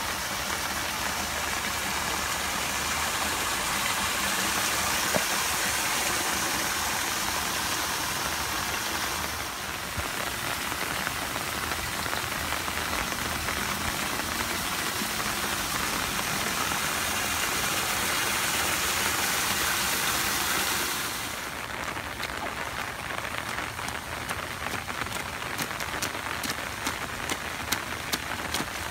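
Steady rain falling on wet pavement, a dense even hiss. About two-thirds of the way in the hiss drops, and a run of sharp taps comes through, growing more frequent toward the end.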